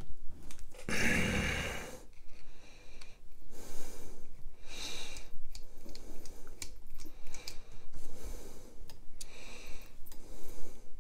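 A man breathing out through the nose several times, slow hissy breaths, with small metallic clicks of a screwdriver bit working in the tiny body screws of a folding knife.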